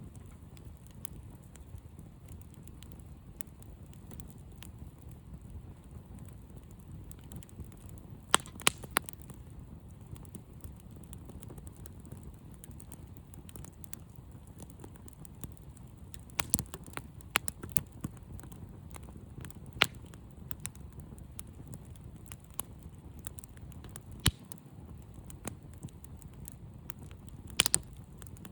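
Campfire burning in the snow: a low steady rumble broken by sharp crackles and pops of burning wood, which come in scattered clusters, the loudest near the middle and near the end.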